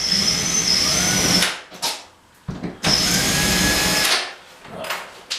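Cordless battery drill driving a screw into a plasterboard wall anchor, running in two bursts of about a second each with a steady high motor whine.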